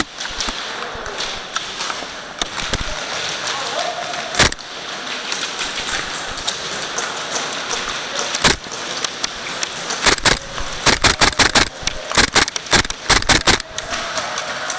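Airsoft guns firing: a few single sharp cracks spaced seconds apart, then a rapid string of shots about ten seconds in that lasts some three seconds, over a steady background din.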